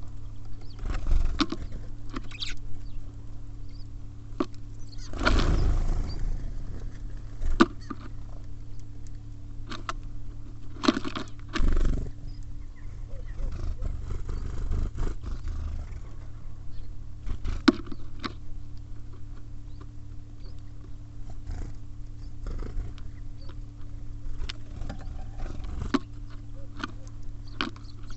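Small birds at a feeder: irregular sharp taps and clicks of pecking and scrabbling on the feeder and seed, with a louder rustling burst about five seconds in and another near twelve seconds. A steady low hum runs underneath.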